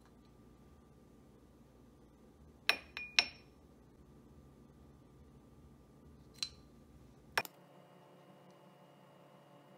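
A measuring spoon clinking against a small glass bowl: three sharp, ringing clinks close together about three seconds in, then two more single clinks later.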